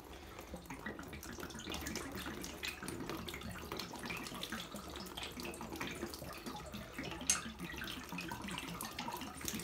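Radiator water trickling out of a towel-rail radiator's valve as the fitting is undone, with a sharp metallic click about seven seconds in.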